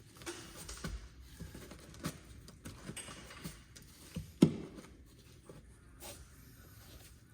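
Scattered light taps and knocks, with one louder knock about four and a half seconds in.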